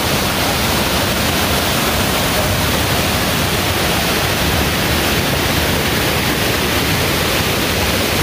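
Rocky mountain stream rushing over small cascades: a steady, even rush of water.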